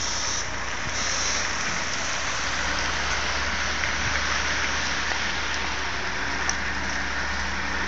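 Volvo semi-truck's diesel engine running at low revs as the articulated truck moves slowly close by; its low rumble comes up a couple of seconds in, over a steady hiss.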